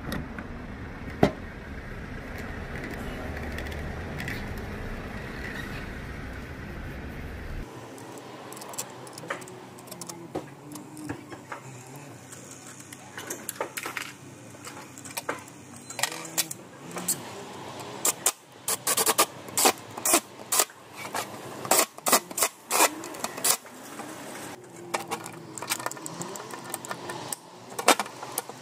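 Small metal parts clinking and clattering as they are handled, with many short sharp clinks that come thicker in the second half. A steady low hum runs underneath at first and stops abruptly about eight seconds in.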